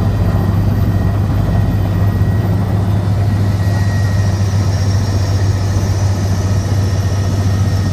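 Helicopter rotor and engine noise, heard as a steady, loud low drone with rushing noise above it.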